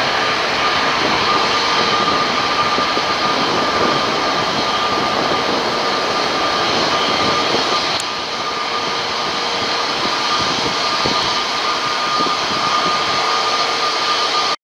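Twin GE90 jet engines of a Boeing 777-300ER running on the runway: a steady jet roar with a high whine held through it. The noise dips slightly about eight seconds in, then runs on.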